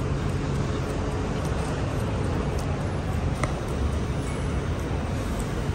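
Steady low vehicle rumble, with a faint click about three and a half seconds in.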